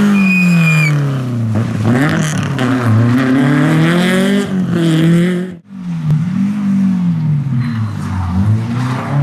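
Rally hatchback engines revving hard and changing gear as the cars pass at speed. About halfway through the sound cuts off abruptly and a second car, a Renault Clio, is heard accelerating toward the road section.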